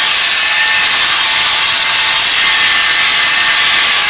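Power sander running against the cross-cut end grain of a log slab: a loud, steady hiss of abrasive on wood.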